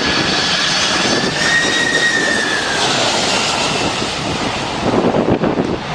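Boeing 747 jet engines whining as the airliner passes low on its landing approach, a high whine gliding up and then down. Wind buffets the microphone near the end.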